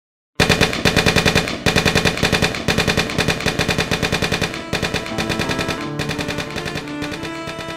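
Machine-gun fire in back-to-back bursts about a second long, roughly ten shots a second, slowly fading. Bowed strings come in underneath in the second half.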